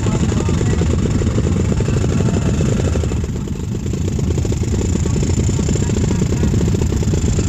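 Several dirt bike engines running together, heard up close with a rapid, steady low firing patter.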